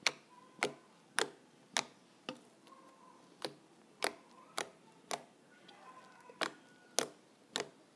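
Toothpaste slime squeezed and poked with the fingers, giving sharp clicking pops about twice a second, a dozen in all, with two short pauses.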